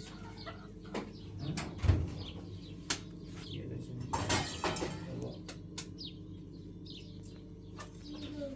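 Small birds chirping in short repeated calls, mixed with scattered clicks and knocks and a louder low thump about two seconds in.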